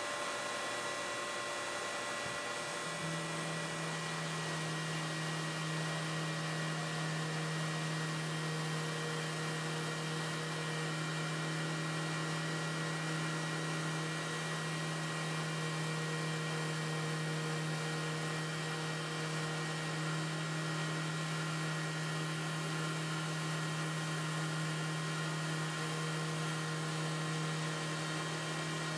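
Small CNC router spindle running steadily as its bit engraves a carbon fiber plate: an even hiss with a steady whine, and a low hum that comes in about three seconds in and holds.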